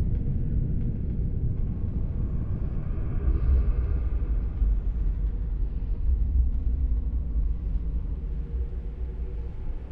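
A steady, deep low rumble, like a drone, that swells a little in the middle and eases off near the end.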